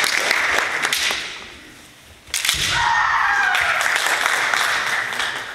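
Spectators' applause dying away, then a sudden, long drawn-out kiai shout from the kendo fencers as the bout restarts, its pitch falling.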